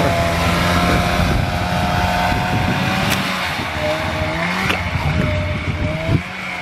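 Polaris snowmobile engine running under load as it tows a drift boat across the snow. The engine note holds fairly steady, wavering up and down a little.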